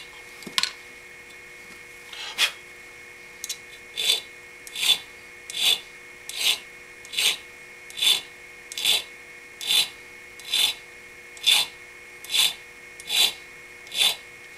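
Hand file rasping across the end of a straight-razor pin rod held in a bench vise, in even strokes a little under one a second after a short pause near the start, over a faint steady hum. The protruding pin rod is being filed down so that very little sits up above the scale before peening.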